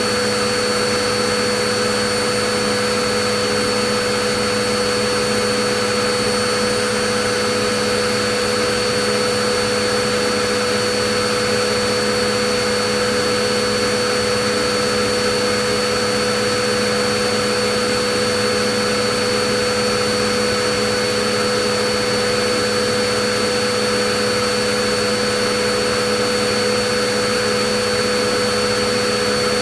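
Vacuum cleaner motor running continuously, a steady whooshing hiss with a constant motor hum and whine that never changes.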